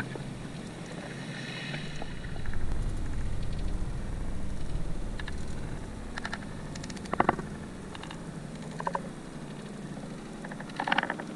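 Sea water swirling and washing around the camera, with a steady low rumble. There are two short bursts of rapid clicking, about seven and eleven seconds in.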